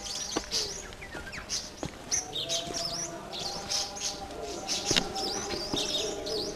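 Many small birds chirping and twittering in quick rising and falling calls. A lower drawn-out note runs underneath from about two seconds in, with a few sharp taps.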